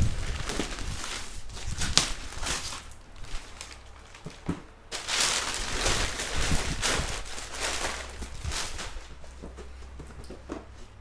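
Irregular rustling and crinkling of packaging being handled, with a few sharp knocks, one about two seconds in, and a longer rustle around the middle.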